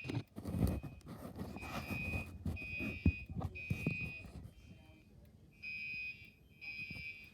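Gentex Commander 3 fire alarm horns sounding in the temporal-three evacuation pattern: three short high-pitched blasts, a pause, then three more. Low thumps and handling noise run underneath, with one sharp knock about three seconds in.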